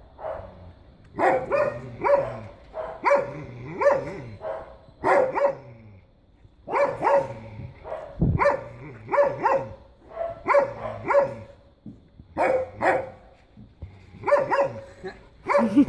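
Dogs barking in short bursts of several barks, a new burst every second or two.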